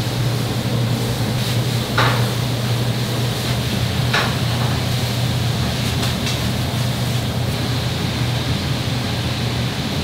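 Steady hum and hiss of kitchen ventilation, with three short knocks of cooking utensils about two seconds apart, the last one fainter.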